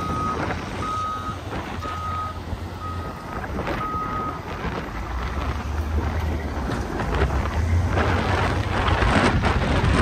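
Backup alarm on a heavy truck beeping about once a second, stopping about four seconds in, over a diesel engine running. Broader noise grows louder near the end.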